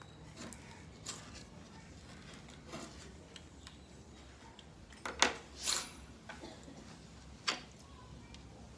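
Handling noises from dosing a cat with a plastic oral syringe: a few scattered light clicks and taps, the loudest about five seconds in, over a low steady hum.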